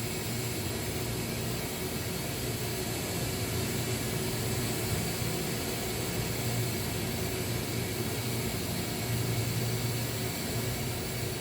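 Welding equipment running: a steady, even hiss over a low hum, without crackle or breaks.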